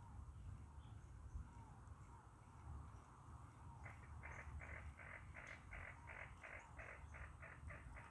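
Faint lakeside ambience: a low wind rumble with distant birds calling. About four seconds in, a quick run of short pulses starts, about three a second.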